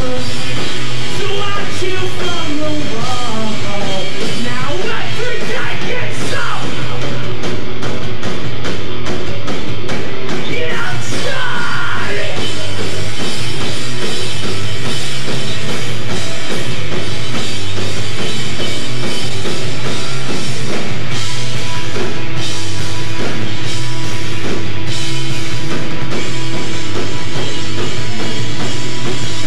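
A live rock band playing loud: electric guitars, bass guitar and a drum kit, with a singer's voice over the first half of the stretch.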